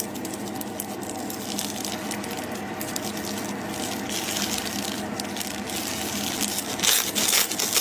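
Slime being kneaded and mixed with small pearl beads: a steady wet squishing with many fine crackles, louder briefly near the end.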